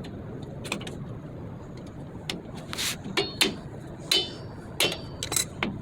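Metal tools and drum-brake hardware clinking and knocking, about nine sharp strikes spread through the second half, some with a brief metallic ring.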